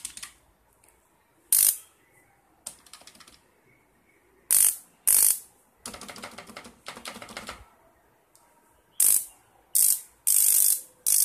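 Homemade EMP generator's spark gap crackling in about six short bursts, the last ones closer together, as its capacitor discharges through the copper coil. Softer crackling comes between the bursts.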